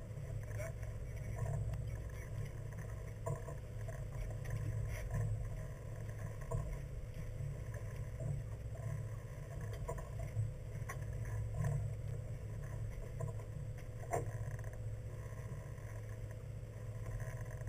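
Fishing boat's engine running steadily as a low rumble with a faint steady hum, and a few light clicks and knocks on deck.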